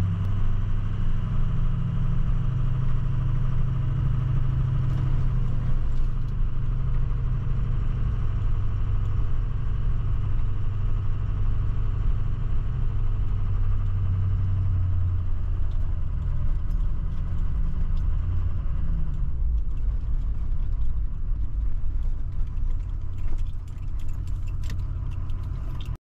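Ford F-250 Super Duty pickup with a Power Stroke V8 turbo-diesel, heard from inside the cab while driving: a steady low engine and road rumble with light rattling, and scattered clicks that come more often near the end.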